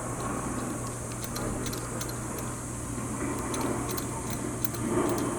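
Light, irregular metallic ticks of a hand tool running in a T30 Torx screw on a turbo oil line, over a steady low hum.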